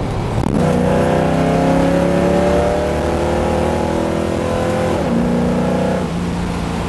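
A restored 1967 Ford Mustang's V8, breathing through a 2.5-inch Magnaflow stainless dual exhaust with a cross pipe, accelerating hard under full throttle from about 40 to 80 mph, heard inside the cabin with the windows up. The engine note climbs steadily for about four seconds. It drops as the automatic transmission upshifts about five seconds in, then holds before easing off near the end.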